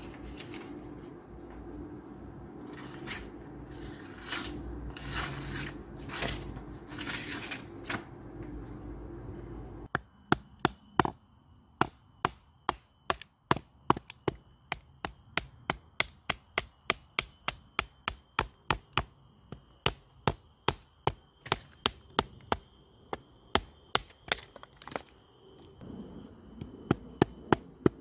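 A Mora knife slicing through jute rope in several rasping cuts over a low steady hum. About ten seconds in, this gives way to Morakniv knives being batoned into a stick of wood: sharp regular knocks, about two or three a second, with a high steady tone behind.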